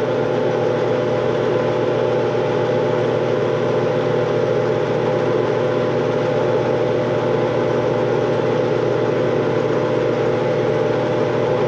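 Metal lathe running with its spindle turning at a steady speed, not cutting: an even motor and gearbox hum with several steady whining tones.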